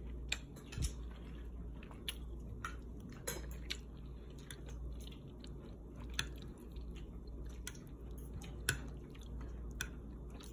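Close-up chewing and mouth sounds of someone eating, with scattered light clicks of a metal spoon against the plate.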